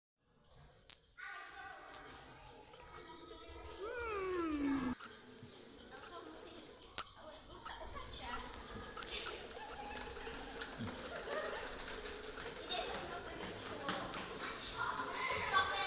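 Short high-pitched squeaks repeating two to three times a second, coming quicker toward the end, from the wheels of a small cardboard-box toy pulled along a smooth floor on a string. Children's voices underneath.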